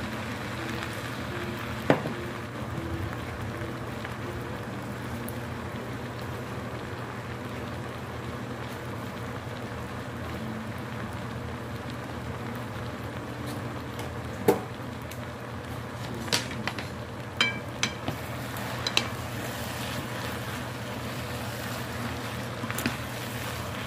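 Glass noodles, pork and vegetables sizzling in a frying pan over a steady low hum, with a few sharp clicks of utensils against the pan, mostly in the second half, as the noodles are seasoned and tossed with chopsticks.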